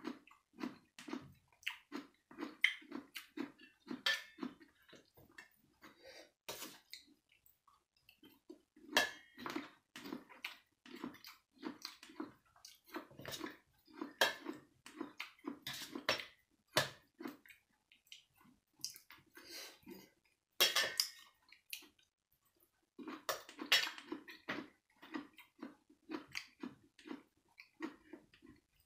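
Close-up eating sounds: wet chewing and lip-smacking in runs of about two to three chews a second, mixed with sharp clicks and scrapes of a spoon and fingers against a stainless steel serving tray.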